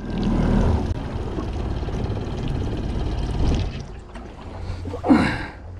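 Water sloshing and wind noise around a small boat, heavier for the first few seconds, then quieter. A brief pitched squeak about five seconds in.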